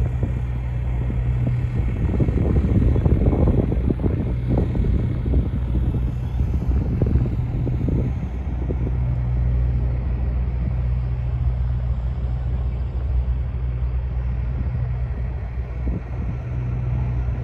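Steady rumble of traffic on an elevated expressway across the river, more uneven and gusty in the first half.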